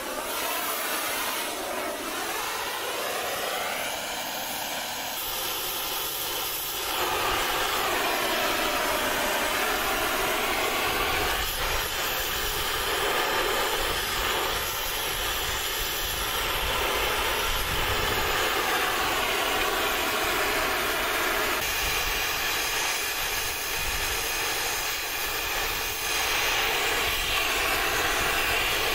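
Gas heating torch flame hissing steadily as it heats a wrapped iron collar on a wrought iron gate to red heat, so the collar can be opened up. The flame gets louder about seven seconds in and then holds steady.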